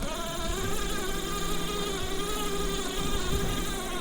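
Stock electric drive of a 1/10-scale FMS FJ40 RC crawler, running with a steady, slightly wavering whine from its motor and gears. No engine-sound module is fitted, so it sounds nothing like a real FJ40.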